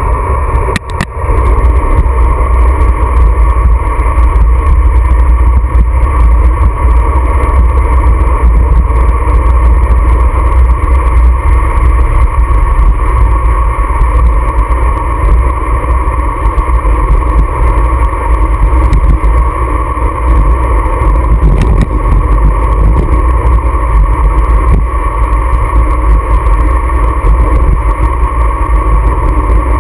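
Loud, steady wind buffeting a GoPro camera mounted on a road bike's handlebars while riding at speed, a deep rumble with a constant hum over it.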